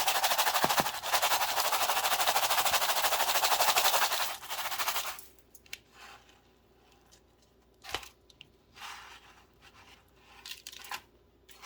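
Egg-washed chicken thigh being pressed and turned in a bowl of panko breadcrumbs: a loud, rapid crackling rustle that stops about five seconds in. After that come a few soft scrapes and a sharp click near eight seconds.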